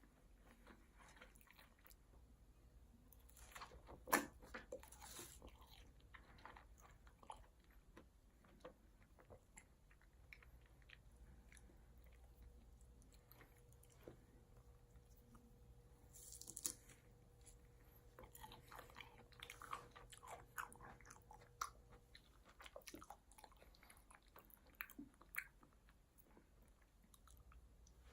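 A person chewing and biting food close to the microphone, faint, with scattered soft crunches and a sharper crunch about four seconds in.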